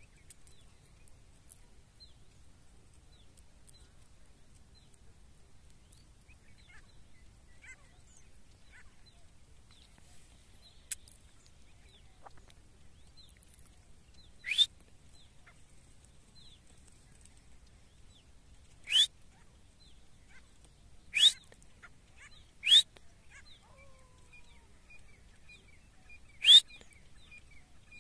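A francolin (teetar) calling with loud, short calls, six of them a couple of seconds apart in the second half, over faint chirps of small birds.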